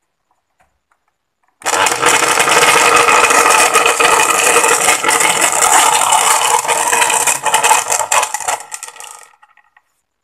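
Panasonic blender running with water in its jar, a loud, rattling motor noise that starts about a second and a half in and stops after about seven seconds. The noise comes from the blade assembly's bushing, which turns out to be loose and wobbly.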